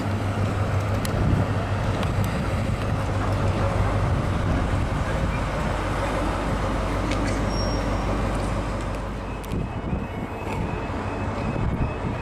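Class 43 HST power car's MTU diesel engine running with a steady low drone as the train moves slowly along the platform. The drone drops away about nine seconds in, leaving quieter outdoor background.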